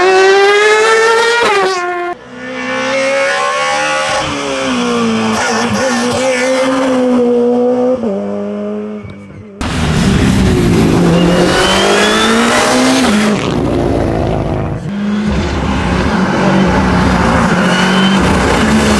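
Hillclimb race car engines at full throttle, revving up and dropping back at gear changes as the cars climb. The sound cuts abruptly to a different car about two seconds in and again about halfway through.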